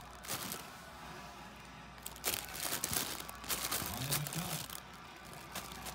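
Crinkle tunnel's crinkly fabric rustling and crackling in bursts as a cat moves and swats inside it: a short burst just after the start, then a longer spell of crinkling from about two to four and a half seconds in.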